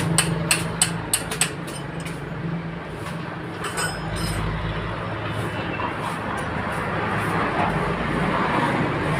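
A few sharp taps in the first second and a half, over a steady low engine hum that runs throughout.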